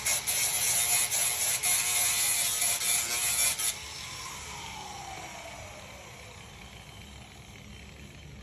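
A small power tool runs with a hiss and rapid clicking, then cuts out about four seconds in and winds down with a slowly falling whine.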